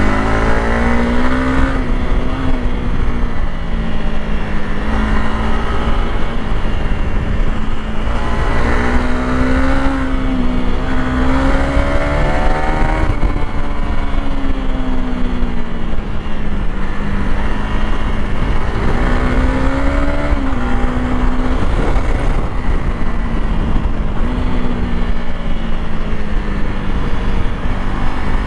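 Honda CRF300L Rally's single-cylinder four-stroke engine pulling hard in third gear through the mid-range, its revs rising and falling every few seconds as the rider opens the throttle out of corners and backs off into them.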